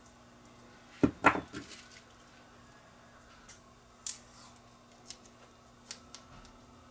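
Hand-handling noises on a wooden workbench: a quick clatter of sharp knocks about a second in, the loudest sound, then a few light clicks and taps as a roll of electrical tape and scissors are picked up and handled.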